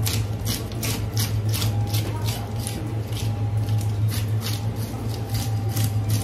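Scales being scraped off a large Japanese meagre: quick rasping strokes, about two a second, over a steady low hum.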